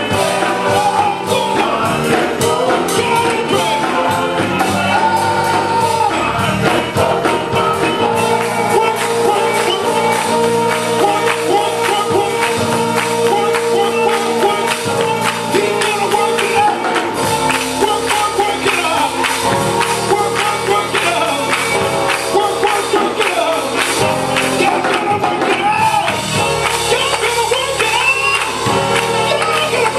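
Live gospel music: a men's vocal group singing over a band, with hand clapping and tambourine keeping a steady beat.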